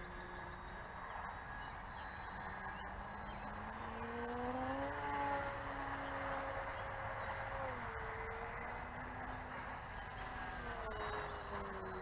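Radio-controlled model airplane's motor and propeller whining in flight, faint, the pitch climbing about four seconds in, holding, then dropping around eight seconds in and again near the end as the plane passes and the throttle changes; loudest shortly before the end.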